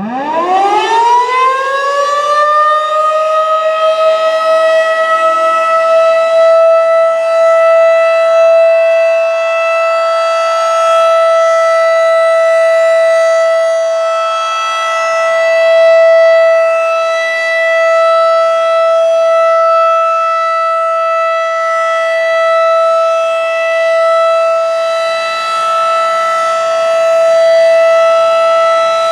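Federal Signal 2001 rotating outdoor warning siren winding up from a low pitch over about three seconds, then holding a steady single-tone alert signal, its loudness swelling and fading slowly as it turns. A routine monthly siren test.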